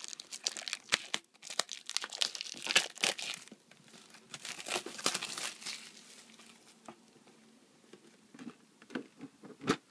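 Clear plastic shrink wrap being torn and crinkled off a Pokémon card tin: dense crackling through the first few seconds and again about five seconds in, then a few scattered rustles and clicks.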